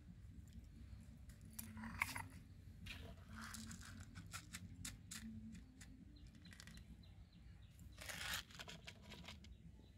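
Dried red chillies crackling and rustling as they are handled on a stone grinding slab, in short bursts with light clicks.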